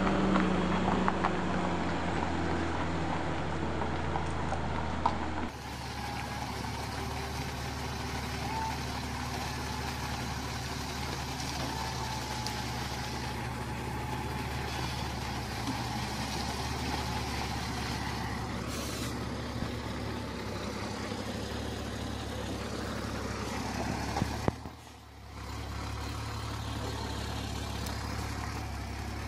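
Diesel engine of a loaded logging truck running at low speed, a steady low drone. The sound changes abruptly about five seconds in, and the level dips briefly near the end.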